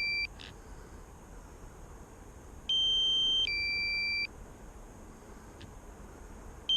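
Drone controller's low-battery alarm beeping: a two-step electronic tone, high then low, each step under a second, repeating about every four seconds. It signals that the aircraft's battery has dropped to 25%.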